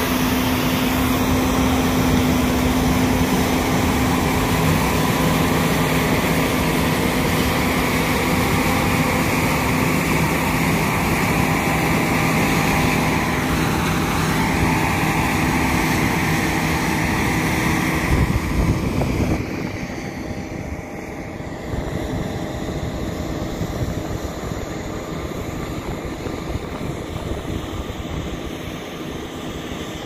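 John Deere S790 combine running while harvesting soybeans: a steady machine drone with a few held tones and a hiss. It grows quieter about two-thirds of the way through as the combine moves away.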